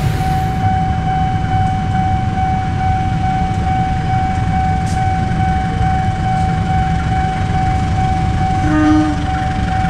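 Level-crossing warning alarm sounding a steady high tone with a fast, even pulse over a low rumble, as a CC 201 diesel locomotive approaches; a short horn blast about nine seconds in.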